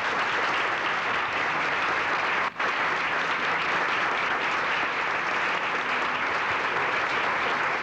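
Audience applauding steadily, with a very brief break about two and a half seconds in.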